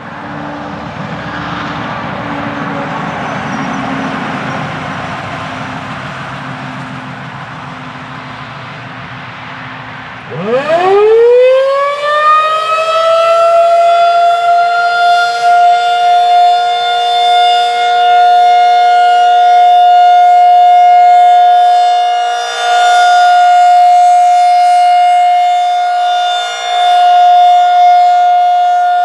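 Federal Signal 2001-SRN rotating tornado siren winding up about ten seconds in, its pitch climbing fast to a steady high tone held as the Alert (steady) signal, dipping in loudness every few seconds as the head turns. Before it starts there is a steady rushing noise.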